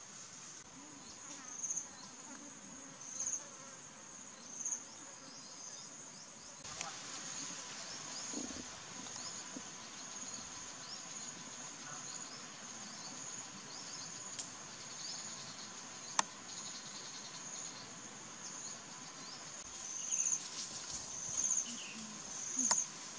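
Insects trilling in a steady high-pitched chorus, with louder pulses every second or so near the start and again near the end. One sharp click about 16 seconds in.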